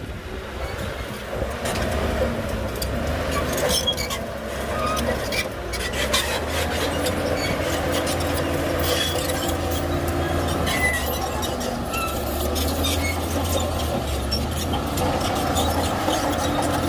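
Shantui bulldozer's diesel engine running steadily under load, with its steel crawler tracks clanking and squealing.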